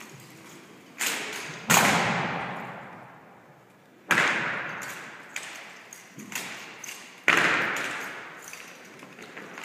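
Drill rifles struck and slapped during a rifle drill routine: sharp cracks, four loud ones with two smaller ones between. Each echoes for a second or two in a large hall.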